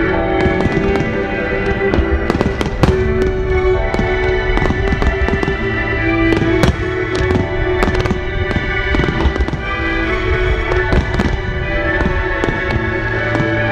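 Fireworks going off in quick, irregular succession: many sharp bangs and crackles from aerial shells and from fireworks launched at the water's surface. Music with long held tones plays under them throughout.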